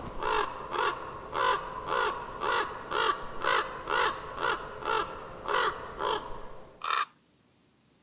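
A crow-family bird calling a long, even series of harsh caws, about two a second, which cuts off suddenly about seven seconds in.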